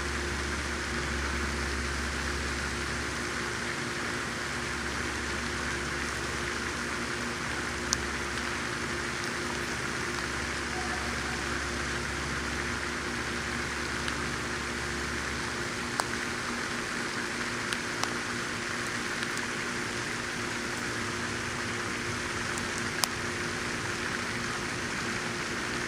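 Steady outdoor background hiss with a low rumble that stops about fifteen seconds in, and a few faint sharp clicks.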